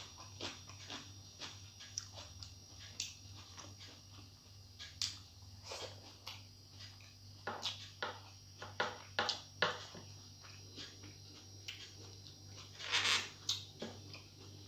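Close-up eating sounds: a person chewing rice and food with irregular wet clicks and lip smacks, and a few longer crunching or slurping sounds, the longest about 13 seconds in. A low steady hum lies underneath.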